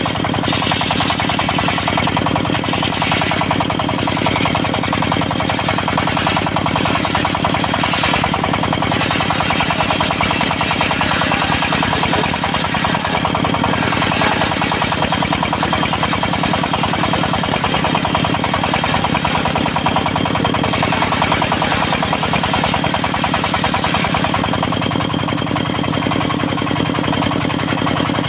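Diesel engine of a portable circular-saw sawmill running steadily, with a rapid, even beat.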